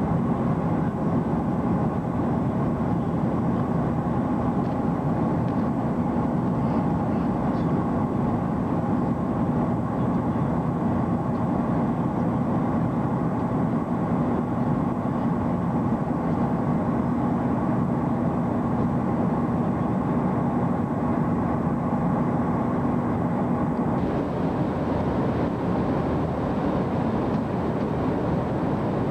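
Steady drone of an airliner's jet engines and rushing air heard inside the passenger cabin, with a steady hum under it. About 24 seconds in the hum drops out and the noise turns brighter.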